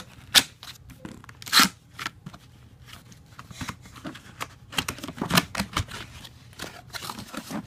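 Cardboard motherboard retail box being handled and opened: rustling and scraping with irregular sharp clicks and snaps, the loudest about a second and a half in.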